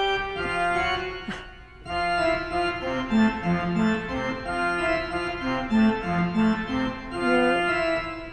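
Pipe organ playing a passage of short, detached notes over held tones, showing the wrist staccato touch. There is a brief break in the playing a little before two seconds in.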